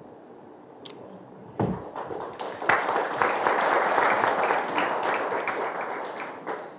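Audience applauding: a few claps start about a second and a half in, build into full applause, and fade away near the end.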